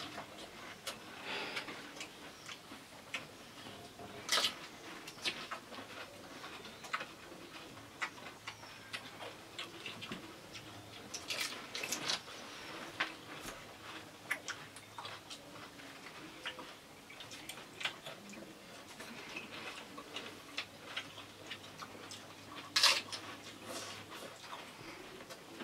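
Crisp pani puri shells cracking and crunching as they are broken open and eaten: an irregular run of small clicks and crackles, with a few louder cracks.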